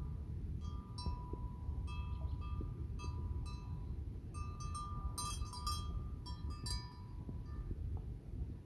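Small metal bells clinking and ringing irregularly, with a quick flurry of rings about five to seven seconds in, over a steady low rumble.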